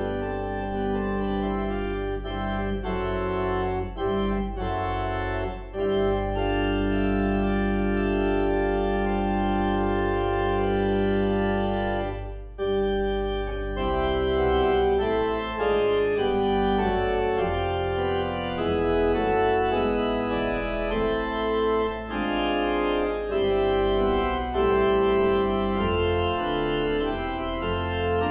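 Organ playing a closing postlude: sustained chords over held low bass notes, with the chords changing every second or two and a short break about twelve seconds in.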